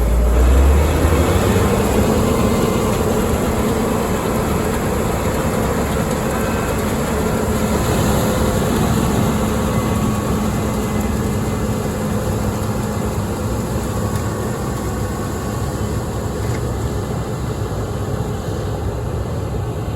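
Large diesel farm machine running steadily in a harvest field: a constant mechanical rumble with a steady low hum.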